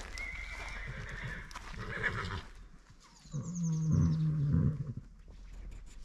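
A horse neighing: a higher call in the first two seconds, then a louder, lower whinny from about three and a half to five seconds in.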